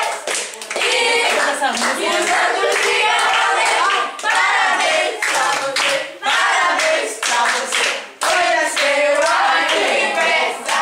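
A group of people clapping their hands together while singing a birthday song in chorus.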